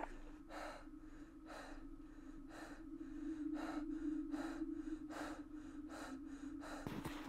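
A person breathing hard in quick gasps, about one breath a second, over a steady low hum.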